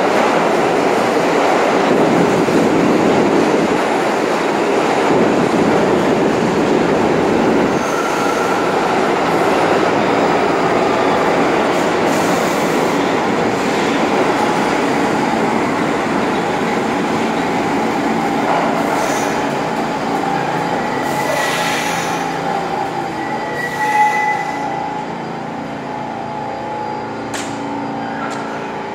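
New York City subway trains running on the track, a loud steady noise of wheels on rails. In the second half come several brief high squealing tones from wheels or brakes, the loudest about 24 seconds in. The noise then eases as an R46 train pulls in along the platform.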